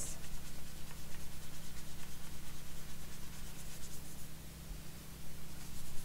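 Soapy fingers rubbing over orchid leaves and in between them: a quick, repeated soft rubbing of about three to four strokes a second, easing off near the end.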